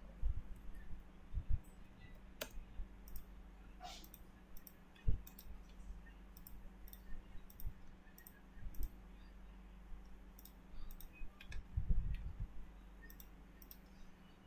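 Computer mouse clicking at irregular intervals, a few clicks with a dull low thump, over a steady low hum.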